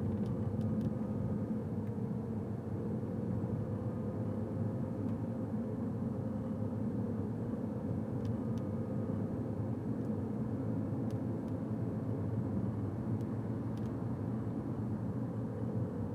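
Steady car road noise while driving slowly: a low engine and tyre rumble with a faint constant hum, heard from inside the car.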